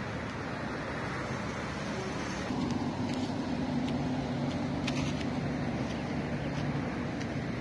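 Road traffic noise, with a steady low engine hum joining about two and a half seconds in and a few faint clicks.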